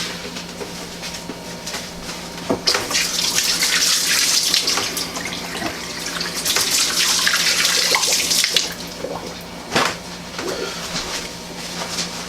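Kitchen tap running for about six seconds, starting about two and a half seconds in, then shut off. A single knock follows shortly after.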